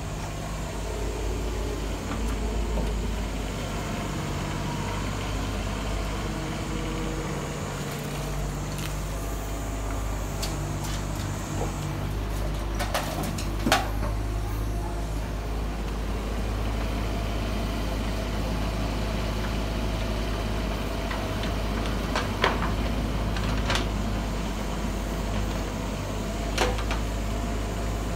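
Bobcat E19 mini excavator's diesel engine running steadily as it digs and loads soil and rubble. Several sharp knocks of the bucket and stones come through it, the loudest about halfway through as a bucketful is dumped into a tipper truck's bed.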